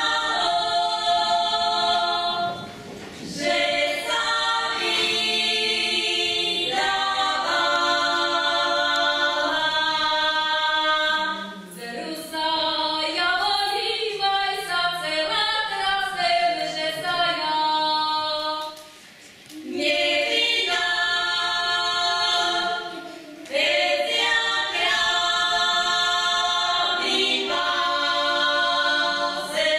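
A group of women singing a folk song together without accompaniment. The song moves in long held phrases, with short breaks between them.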